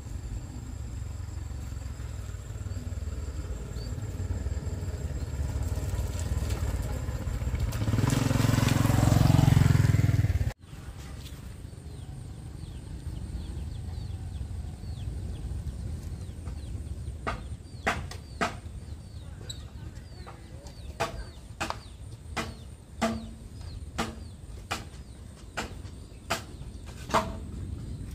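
A motorbike on the road approaching, its engine rumble growing louder for about ten seconds before it cuts off abruptly. A quieter stretch follows, with a series of sharp knocks about once a second in the second half.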